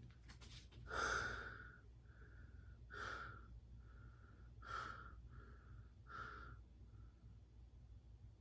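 A person breathing close to the microphone: a stronger breath about every one and a half seconds with softer ones in between, over a faint steady low hum.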